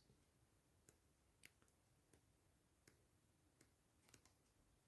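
Near silence with a few faint, soft clicks spaced irregularly, from a guidebook's pages being leafed through.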